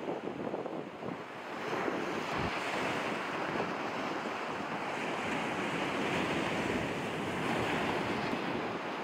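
Rough storm surf breaking and washing over rocks and sand, with wind buffeting the microphone. It gets louder about two seconds in as the waves come in and stays steady after.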